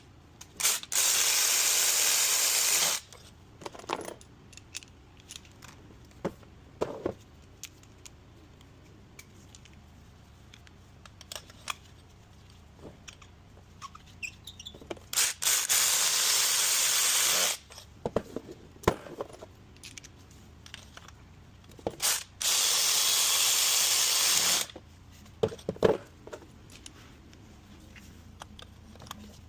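Three steady hissing blasts of pressurised spray, about two seconds each, with light clicks and knocks of tools handled between them.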